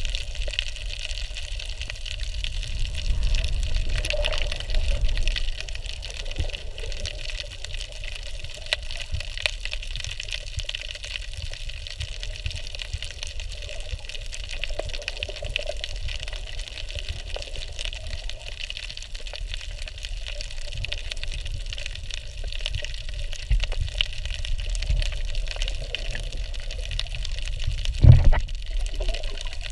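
Underwater ambience picked up by a submerged camera: a steady, muffled rush and rumble of moving seawater with faint crackling clicks. A single loud thump comes near the end.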